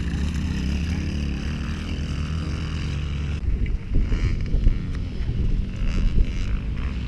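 Dirt bike engines running on a motocross track, with wind noise on the microphone. The sound changes abruptly about a third of the way in, and after that the wind comes in gusts.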